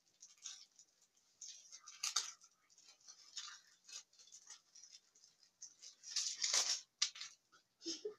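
Packaging rustling and crinkling in irregular short bursts as a small toy figure is unwrapped by hand, with a longer, louder crinkle about six and a half seconds in.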